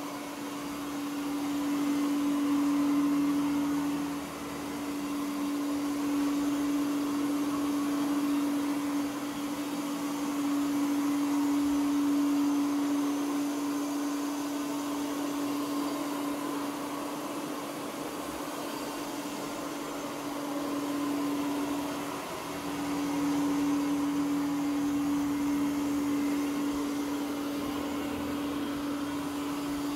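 Ecovacs Deebot OZMO T8+ robot vacuum cleaning carpet: a steady suction-motor hum with a clear held tone over a whoosh of air, swelling and dipping in loudness every several seconds.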